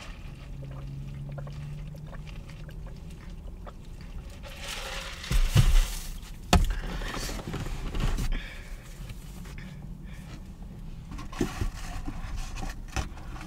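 Soft-drink being sipped through a plastic straw from a paper cup, a faint liquid gurgle. Between about five and six and a half seconds in comes a louder rustle with a thud, ending in a sharp click.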